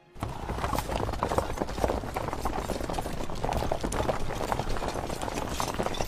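Several horses galloping over dirt ground: a dense, continuous clatter of hoofbeats that starts suddenly.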